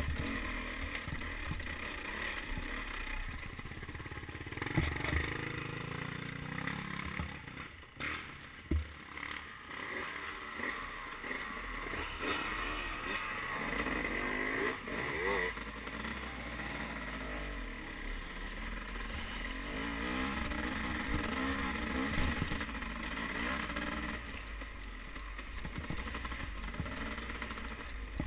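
Dirt bike engine running as the bike rides a rough trail, its revs rising and falling, with knocks and clatter from the bumps.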